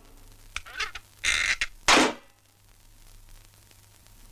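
Cartoon sound effects: two faint short blips, then two louder short sounds about one and a half and two seconds in.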